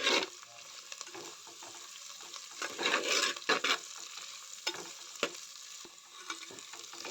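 Sliced onion, curry leaves and whole spices sizzling in hot coconut oil in a clay pot, with a steady hiss and several stirring strokes through the pan, the loudest cluster about three seconds in.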